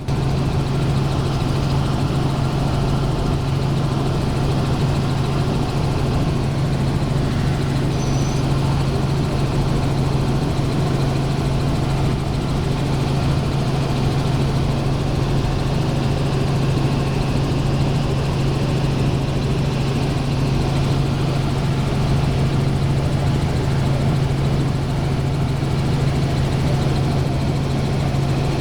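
Helicopter in flight: a steady, unbroken drone of engine and rotor with a strong low hum, cutting in suddenly at the start.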